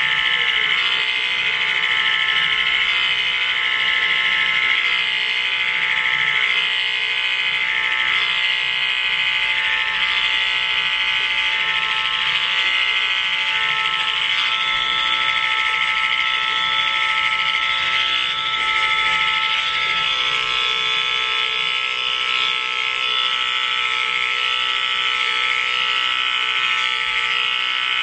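Electric hair clippers running with a steady buzz while cutting through thick hair.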